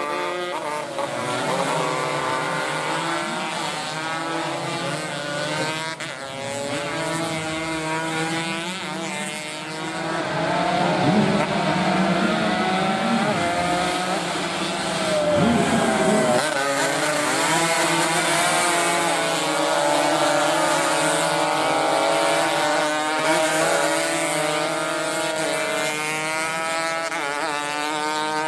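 Several small racing motorcycles at full race pace, their high-revving engine notes overlapping, rising and falling as the riders accelerate and back off through the corners.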